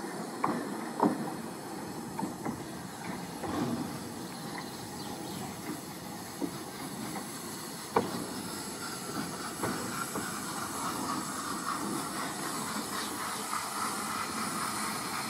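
George England 0-4-0 saddle-tank steam locomotive PRINCE, a small narrow-gauge engine, moving slowly past with a steady hiss of steam that grows louder in the second half. Scattered metallic clanks from the wheels and motion, the sharpest about halfway through.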